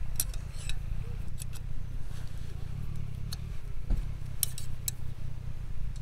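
Light metallic clicks and clinks of thin metal rods being pushed into the holes of a knock-down fire pit frame, about a dozen scattered ticks, over a steady low rumble.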